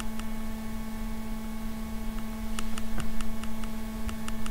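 Steady electrical hum with a few fainter steady higher tones, over low hiss. Faint quick clicks tick through it and bunch together about three seconds in.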